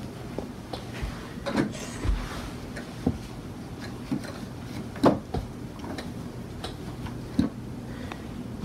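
Irregular clicks and knocks from handling at an electronic keyboard, its panel buttons pressed and a plush toy set against it, over a low steady hum; no notes are played.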